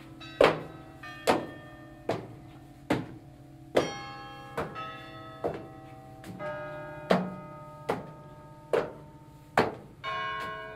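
A steady series of sharp struck tones, a little more than one a second, each ringing on with several bell-like pitches that change from strike to strike. This is a piece of electroacoustic sound art.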